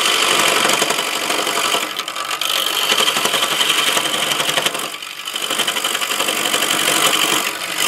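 Wood lathe with a hand-held turning tool cutting into a spinning wooden blank: a continuous, rapid chattering rasp with a steady high whine. The cut eases off briefly about two seconds in and again about five seconds in.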